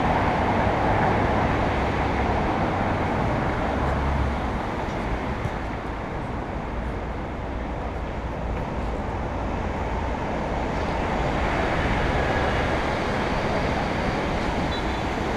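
Steady rumbling background noise with no distinct events, easing slightly about five seconds in and building back toward the end.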